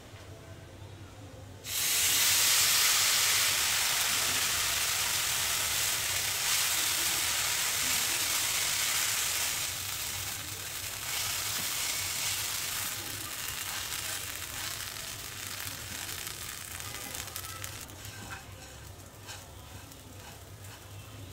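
Liquid orange zarda food colouring hitting lachcha semai vermicelli in a hot pan and sizzling. It starts suddenly about two seconds in, loud at first, and slowly dies away as the vermicelli is stirred with a spatula.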